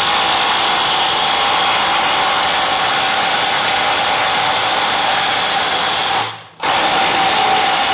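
Two cordless impact drivers, a Stanley Fatmax and a Craftsman, running together at full speed into a wooden beam, making a loud, steady hammering rattle. The sound cuts out for a split second about six seconds in, then carries on.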